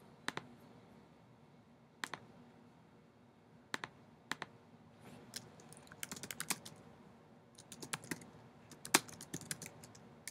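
Typing on a computer keyboard: a few scattered key clicks, then two quick runs of typing in the second half as a web search is entered.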